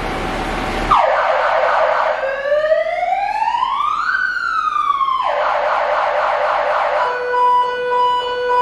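Star 266 fire engine's siren sounding, starting about a second in: a fast warble, then one slow rise and fall in pitch, more warbling, and a steady tone near the end.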